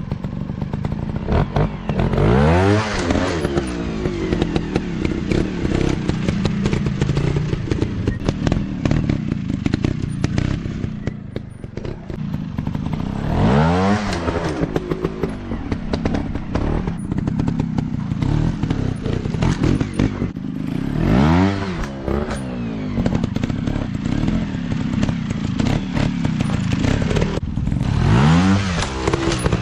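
Off-road trail motorcycle engine running, revved up and back down four times, with clattering knocks throughout.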